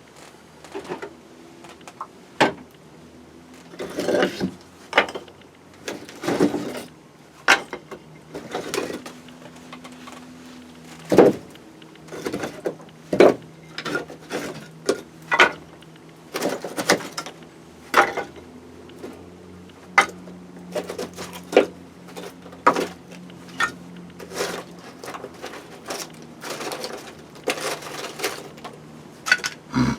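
Irregular sharp knocks and clatters of hard objects being handled, dozens of them, some ringing briefly, over a faint steady hum.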